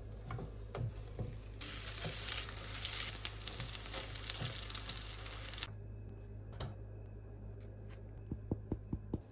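French toast frying in a pan, sizzling for about four seconds; the sizzle starts and cuts off abruptly. A few light clicks follow near the end.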